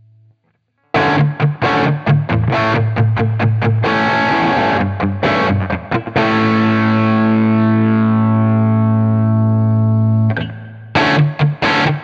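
Electric guitar with a crunchy, lightly distorted tone: a b3guitars Phoenix played through an IK Multimedia TONEX tone model of a Marshall SV20H amp. From about a second in it plays short choppy chords, then lets one chord ring for about four seconds, and near the end goes back to choppy chords.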